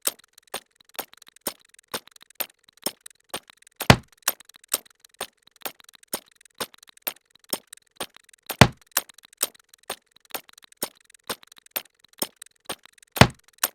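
Punch-to-the-head sound effect repeated in a steady rhythm, about two hits a second. A heavier, deeper hit comes about every four and a half seconds: near the start, midway and near the end.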